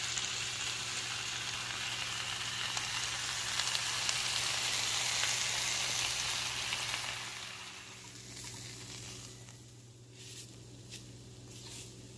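Meat frying in hot oil in a pan. The sizzle dies down about seven seconds in, and a few short clicks follow near the end.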